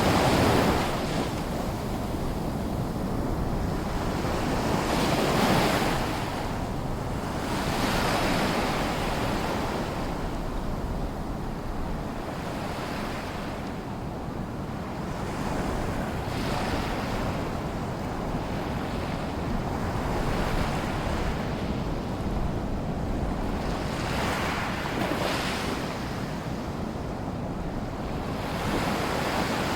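Small waves lapping and washing ashore at a sea lagoon, a steady hiss of water with a swell of surf every few seconds, and some wind on the microphone.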